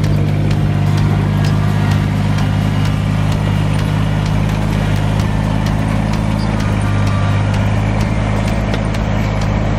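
Kubota compact tractor's diesel engine running at a steady speed as it drives by, with a faint regular ticking over the engine note.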